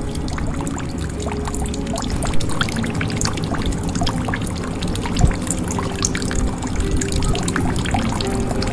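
Water pouring into a jug, running steadily, with many small drops and plops and short gurgling notes that change pitch as the water stirs inside.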